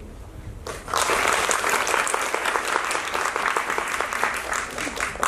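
Audience applauding, breaking out suddenly about a second in and continuing as steady clapping.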